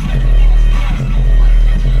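Loud bass-heavy electronic music played through a 4-inch mini subwoofer in a wooden box, driven by a Rock Series amplifier and pushed to its limit, with the stereo speakers carrying the mids. A deep bass note holds under the music and swells roughly once a second.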